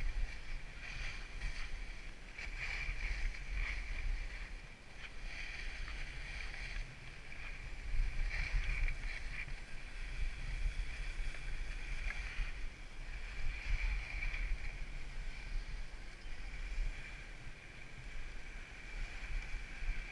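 Skis sliding and scraping over packed snow in a steady hiss that swells and fades every few seconds, with wind buffeting the microphone in a low rumble.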